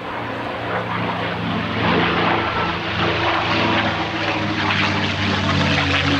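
P-51D Mustang's Packard Merlin V12 engine and propeller running at display power on a low pass. It grows louder over the first couple of seconds, then holds steady.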